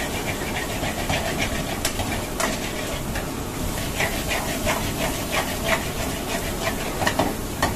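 Chopped garlic, then onion and green capsicum, stir-frying in a steel wok over a high gas flame: a steady hiss and sizzle, with the steel ladle scraping and clicking against the pan many times as it is stirred.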